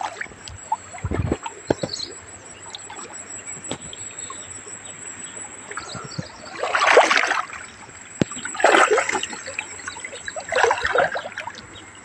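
River water splashing and dripping off a wet cast net as it is lifted and handled in the water, in three bursts about two seconds apart, with a low thump about a second in.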